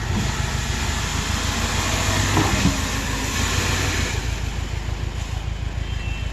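Subaru Outback engine pulling steadily under load on an off-road trail, with a broad rushing noise over it. Both ease off about four seconds in.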